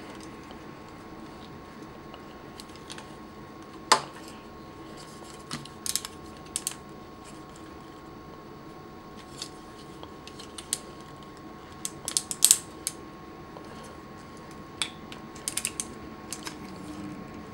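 Plastic clicks and snaps of a Mastermind Creations Felisaber transforming-robot figure's joints and parts being bent and folded by hand, scattered and irregular, with a sharp snap about four seconds in and a quick cluster of clicks around twelve seconds in.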